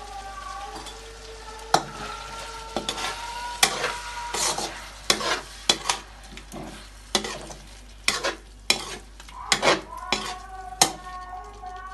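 A spoon stirring chicken jalfrezi in a hot pan, with many irregular sharp clinks of the spoon against the pan over a steady sizzle.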